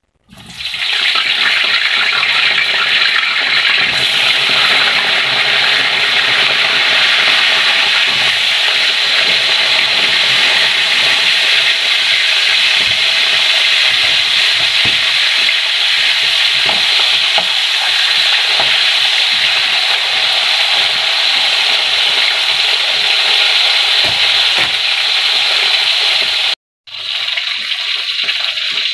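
Sliced eggplant frying in hot oil in an aluminium wok: a loud, steady sizzle that starts as the pieces go in and breaks off for a moment near the end.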